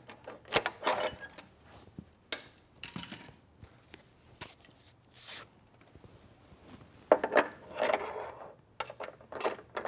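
Metal clinks and knocks of a Pilates reformer's metal riser post and its locking pin being pulled out of and fitted into the metal receiver on the frame. There is a sharp clink about half a second in, scattered taps after it, and a cluster of clattering about seven seconds in.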